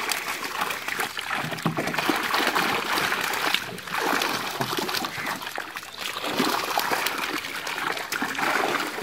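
Shallow water splashing and sloshing as a net crowded with live fish is dragged through it, with many small irregular splashes from the fish thrashing in the net.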